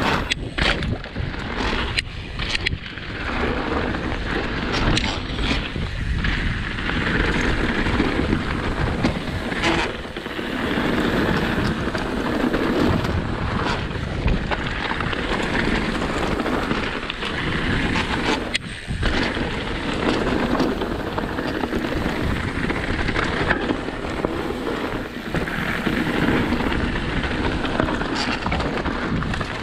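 Specialized Stumpjumper mountain bike riding a dirt jump trail: knobby tyres running over packed dirt, rocks and dry leaves, with wind buffeting the microphone. The noise swells and dips with speed and has occasional sharp knocks from bumps and landings.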